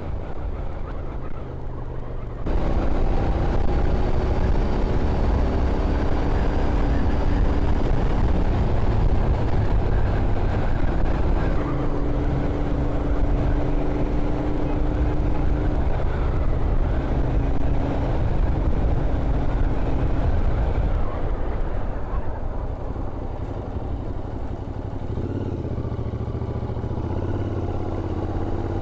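Royal Enfield Continental GT 650's parallel-twin engine running on the move, with wind rushing over the microphone. It gets suddenly louder a couple of seconds in and eases off after about twenty seconds.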